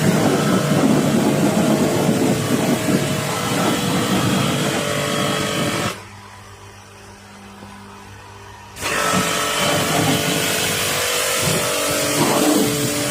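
A water jet spraying onto an electric skid steer loader, starting and stopping abruptly: it runs for about six seconds, stops for about three, then sprays again. A steady hum continues underneath.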